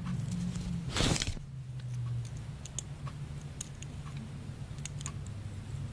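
Plastic K'nex pieces being handled and snapped together: a short rustle about a second in, then scattered light clicks.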